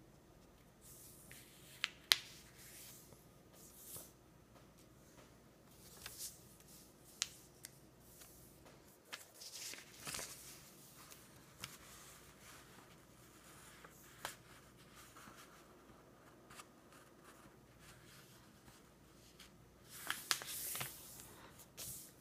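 A sheet of paper being folded into a paper airplane by hand on a table: faint rustling and sliding of the paper with scattered sharp crinkles and taps as the creases are pressed down, and a busier stretch of rustling near the end.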